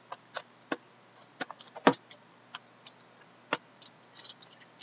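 Shrink-wrapped trading card boxes handled on a tabletop: scattered sharp clicks and taps of the boxes being picked up and set down, the loudest just under two seconds in.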